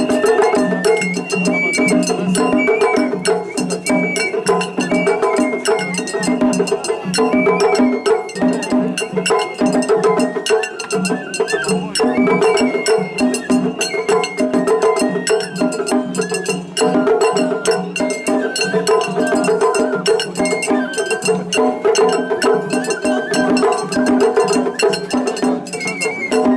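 Japanese festival hayashi music: a high bamboo-flute melody over a steady pattern of drum and small hand-gong strikes.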